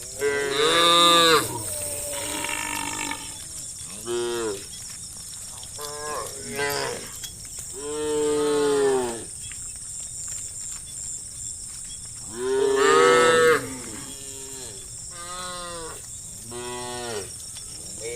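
A herd of cattle mooing: a dozen or so calls from several cows, one after another and sometimes overlapping, differing in pitch and length. The loudest come about a second in and about two-thirds of the way through.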